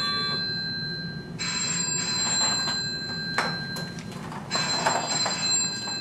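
Phone ringtone ringing in repeated rings of steady high electronic tones, each about two seconds long with roughly a second's gap between them.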